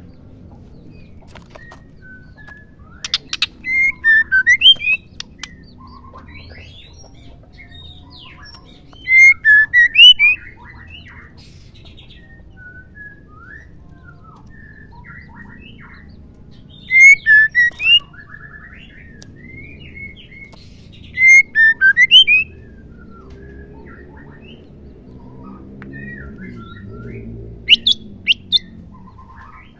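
Female white-rumped shama calling: five loud bursts of quick, sharp notes a few seconds apart, with quieter short chirps and whistles between them, over a faint low hum.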